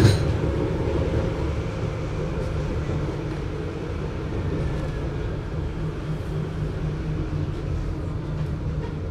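Mainzer Mobilität GT6M low-floor tram running, a steady, very muffled low rumble. A sharp knock comes right at the start, and a faint whine falls in pitch about halfway through.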